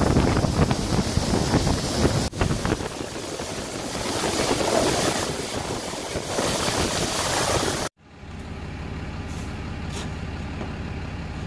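A Ram 3500's Cummins turbodiesel pulling a snowplow blade through heavy, wet slush, heard from inside the cab as a dense rush over the engine's rumble. About eight seconds in it cuts off abruptly to a quieter, steady low engine hum with a couple of faint scrapes.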